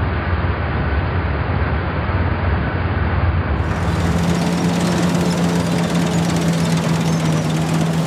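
JF MS5 side-mounted combine harvester threshing wheat, driven by a Fordson Super Dexta tractor: steady running and rattling of the threshing machinery and belts. A little over halfway through the sound changes and a steady engine hum comes to the fore.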